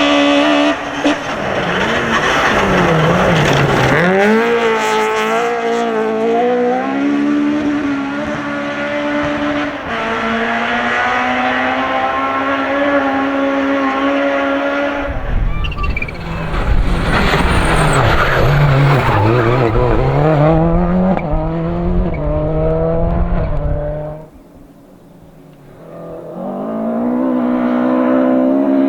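Rally cars at full throttle on a special stage: engines revving hard, the pitch climbing and dropping sharply with each gear change as the cars pass. It goes quieter for a moment near the end, then another car's engine note rises as it accelerates.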